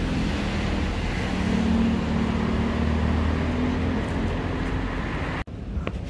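Street traffic noise with a motor vehicle's engine running nearby, a steady low rumble and hum. It cuts off abruptly about five and a half seconds in, giving way to quieter street sound with a few light taps.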